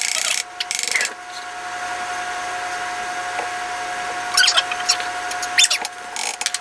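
Steady electric motor hum with a single clear tone, with scattered clinks and scrapes of a metal beater against a steel mixing bowl.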